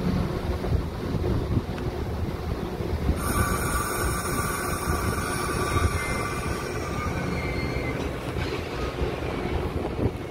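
Metra bilevel commuter train on the BNSF line starting to pull out of the station, with a steady low rumble. About three seconds in, a high steady squeal of several tones comes in and lasts about three seconds.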